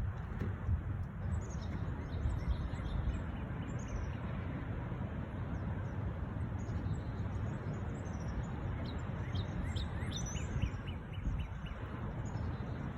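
Wind blowing and gusting, rumbling on the microphone, with birds chirping over it; about nine seconds in, a bird gives a quick run of short calls.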